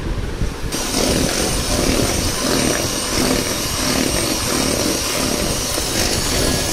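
Electric hand mixer running, its twin beaters whipping butter and icing sugar into buttercream in a bowl. The motor sound gets suddenly louder just under a second in, then runs steadily.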